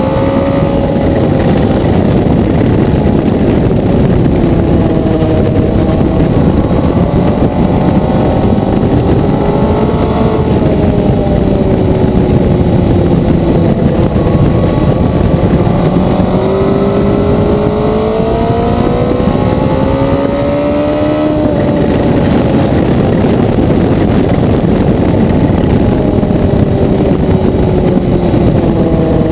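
Motorcycle engine under way, its note climbing and falling as the throttle is opened and rolled off through curves, with the pitch dropping abruptly a third of the way in and again about two thirds through. Heavy wind rush runs under it.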